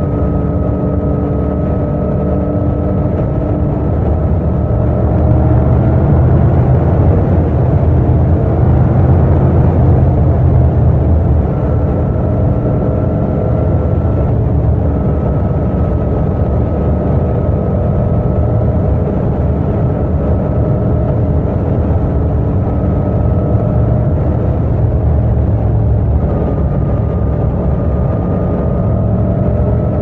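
Yamaha MT-07's 689 cc crossplane parallel-twin engine pulling steadily in sixth gear at highway cruising speed of about 110 km/h, a constant low drone with a steady high whine over it.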